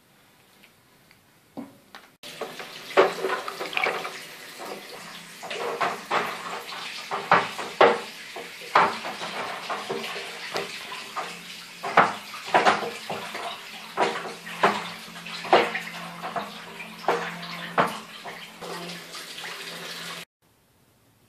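Liquid sloshing and splashing with irregular sharp knocks over a steady low hum. It starts about two seconds in and cuts off abruptly near the end.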